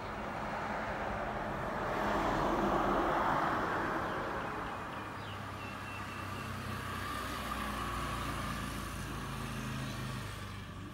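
Road traffic noise: a vehicle passing with a swell about two to four seconds in, then a steadier low engine hum.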